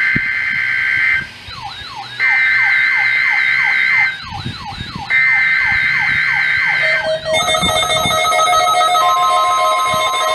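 NOAA Weather Radio EAS/SAME digital header: three harsh buzzy two-tone data bursts, each about two seconds long with a second's gap, as the weekly test begins. Several weather alert radios set off by the test join in, with falling chirps and a warbling high tone between the bursts, then from about seven seconds a mix of steady and beeping alarm tones, and the station's steady warning alarm tone starts about nine seconds in.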